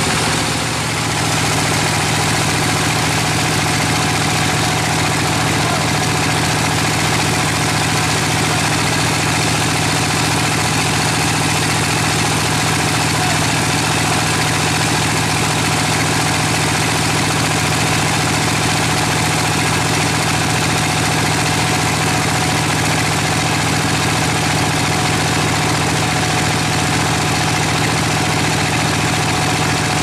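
Single-cylinder stationary diesel engine running steadily, the engine that powers the sawmill's band saw.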